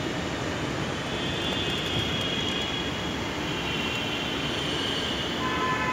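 Steady mechanical rumble and hiss of metro station machinery, with a faint wavering high whine through the middle and a short, higher steady tone near the end.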